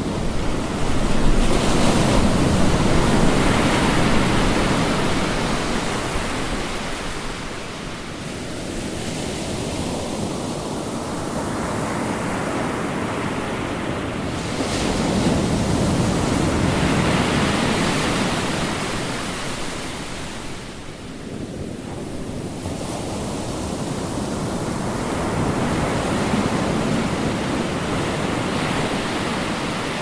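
Ocean surf breaking and washing up a beach: a continuous rush of water that swells and eases. It grows loudest a few seconds in, again around the middle, and again near the end.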